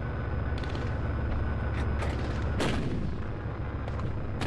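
A Leopard 1 tank's 105 mm main gun firing once, about two and a half seconds in: one sharp crack followed by a rumble that falls away, over the tank's steady idling rumble and a thin steady whine. A second sharp knock comes near the end.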